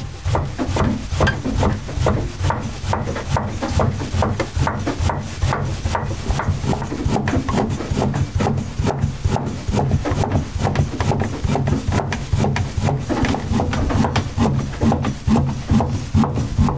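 Soba-kiri knife chopping through folded buckwheat noodle dough onto a wooden board, a steady run of sharp knocks at about three cuts a second.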